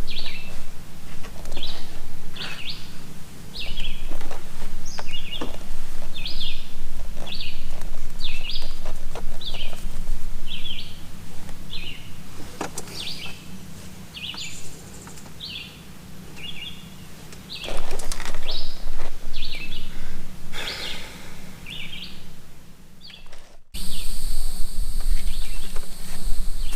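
A bird chirping over and over, a short call repeated a little more than once a second, over a steady low hum with a few clicks. About 24 seconds in, the sound breaks off abruptly and a different background with a steady high whine takes over.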